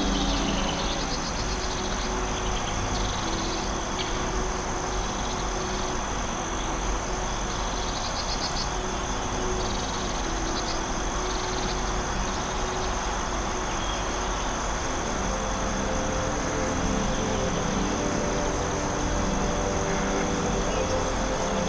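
Forest ambience: a steady high insect trill with scattered short chirps, over an even hiss, with low held tones underneath that grow more noticeable near the end.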